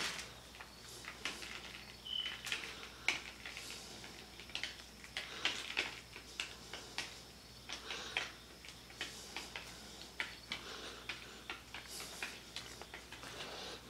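Foam brush spreading wet epoxy resin over a painted wood cutout: irregular sticky clicks and soft swishes of the sponge on the tacky surface, over a faint steady low hum.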